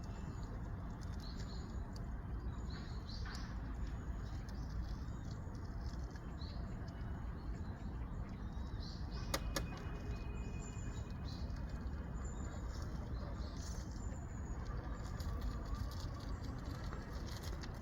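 Steady low rumble with scattered short high-pitched chirps, like small birds, and a sharp click about nine seconds in.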